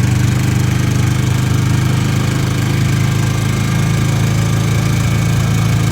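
Small vehicle engine running steadily at low speed, with an even, unchanging hum.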